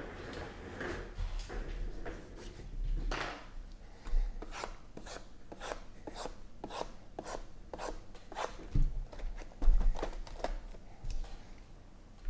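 Shrink-wrapped cardboard card boxes being handled and restacked on a table: a run of short rubbing and scraping strokes, about two or three a second, then a couple of thumps as boxes are set down.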